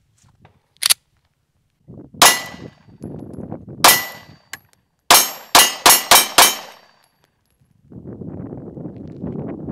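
9mm pistol shots from a Springfield XD-S firing Speer Gold Dot 124 grain hollow points, with steel targets ringing. Two single shots a couple of seconds apart, then five quick shots in about a second and a half. A steady rushing noise starts near the end.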